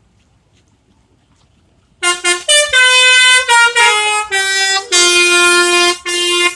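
Bus telolet horn, a multi-tone musical air horn, playing a tune about two seconds in. It sounds short blasts, then notes stepping down in pitch, a long held low note and a short final note.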